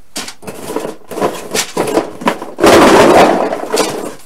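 Hollow plastic Easter eggs clattering and rattling in a cardboard box as hands rummage through them, with a loud burst of shuffling about two and a half seconds in.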